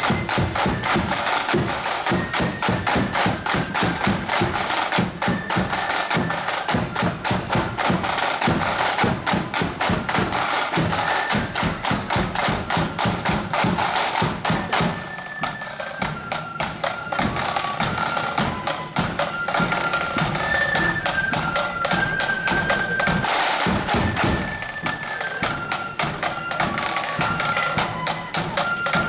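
Marching band playing on parade: snare drums rattle a fast, steady beat under a high, piping melody of held notes, which stands out more clearly in the second half.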